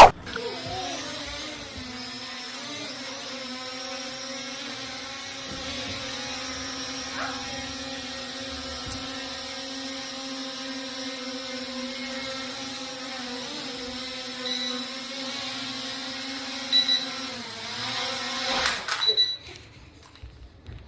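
P18 Pro drone's motors and propellers spinning with a steady whine after a sharp click at the start, then winding down and stopping near the end.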